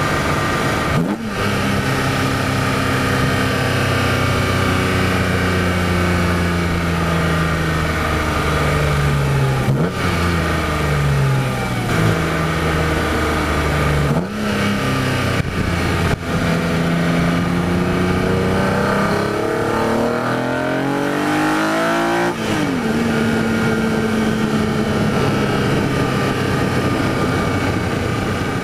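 BMW E46 M3's S54 inline-six heard through an Evolve CSL-style carbon fibre airbox, driving on the street with several gear changes. Late on, the revs climb steeply through a pull, then drop sharply at an upshift and settle to a steady run.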